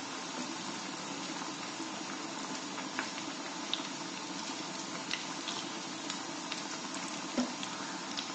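Chana dal vadas deep-frying in oil in a kadai: a steady sizzle with scattered small crackles and pops.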